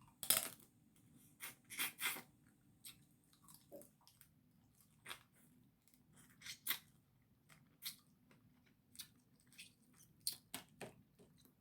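Close-miked eating of Dungeness crab: irregular short crunches, clicks and wet chewing sounds, loudest in the first two seconds.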